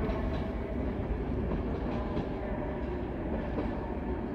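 Passenger carriages of a departing train rolling away over the rails: a steady rumble of wheels on track with a few faint, irregular clicks over the rail joints.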